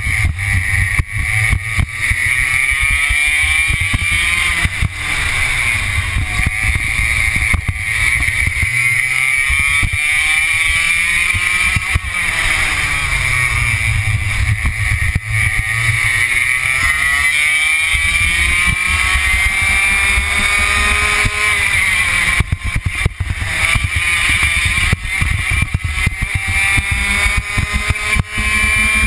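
Onboard sound of a two-stroke racing kart engine at full racing speed, its pitch climbing over several seconds as the kart accelerates, then dropping sharply as the driver lifts for a corner, several times over.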